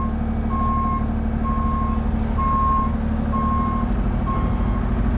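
Vehicle backup alarm beeping steadily, about one half-second beep a second, over a diesel engine running steadily.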